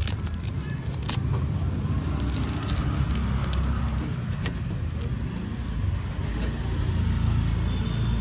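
Steady low rumble of road traffic, with a few sharp clicks about a second in.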